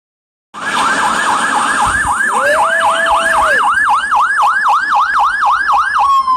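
Emergency vehicle siren on its fast yelp, starting about half a second in and switching to a slow wail near the end. Partway through, a dog howls one held, lower note for about a second.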